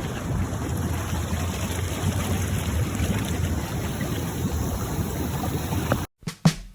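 Steady rushing outdoor noise with no clear pitch, cutting off abruptly about six seconds in, followed by a couple of faint clicks.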